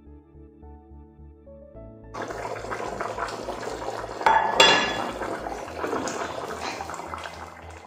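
Soft background music, then from about two seconds in the spiced chicken broth boiling vigorously in an enamelled cast-iron Dutch oven with its lid off. About halfway through comes one sharp, ringing clank of the heavy cast-iron lid.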